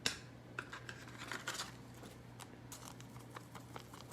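Trading cards being handled: crisp swipes and light scratchy rustles of chromium cards sliding against each other, with a sharper swipe at the start and another at the end, over a faint steady electrical hum.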